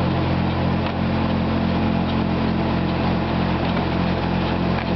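Bornemann hopper-fed sludge pump running steadily while it draws dewatered centrifuge sludge: an even machine hum with a regular low pulsing.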